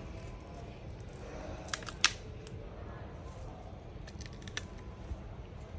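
Sharp plastic clicks as the phone's back cover clips are pried loose: two close together about two seconds in, then a few fainter ones about four and a half seconds in.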